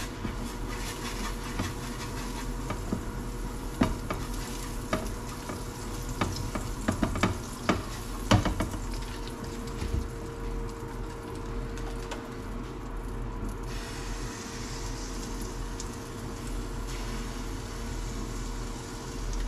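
Food sizzling in a hot frying pan while a utensil scrapes and taps against the pan, with a run of sharp clicks and knocks in the first half.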